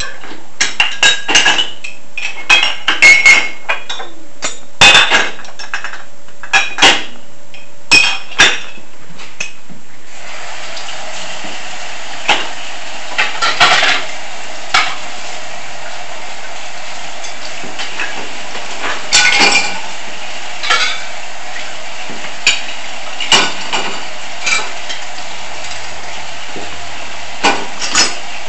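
Dishes and cutlery clinking and clattering as they are loaded into a dishwasher rack. About ten seconds in, water starts running with a steady hiss, with occasional clinks of dishes over it.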